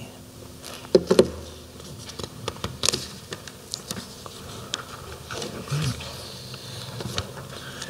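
Lectern microphone picking up small clicks and rustles, with two brief low throat or breath sounds from the speaker, one about a second in and one near six seconds.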